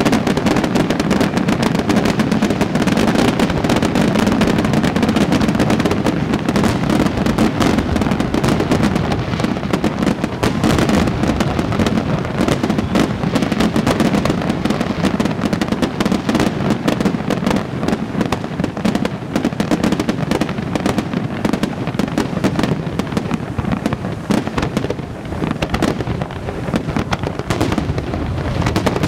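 Fireworks display: aerial shells and ground fountains going off in a rapid, unbroken barrage of bangs and crackle.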